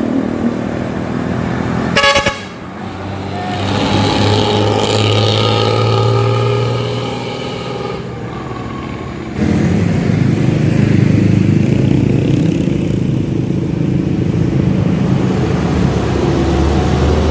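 Intercity bus accelerating hard through a bend, its engine and modified exhaust growling. A vehicle horn sounds for a few seconds, and the engine noise gets suddenly louder about halfway through.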